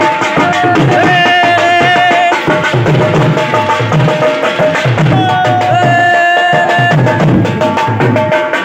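Dhol, a two-headed barrel drum beaten with two sticks, playing a fast, steady folk rhythm. Above it runs a melody of long held notes with a slight waver.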